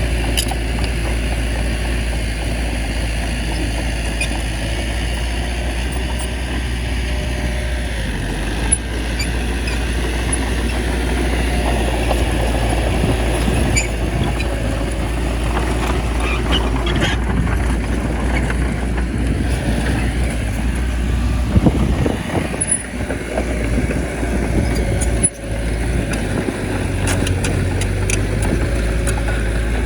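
Bulldozer's diesel engine running steadily under load while it pushes soil, with scattered metallic clanks and clicks from its tracks.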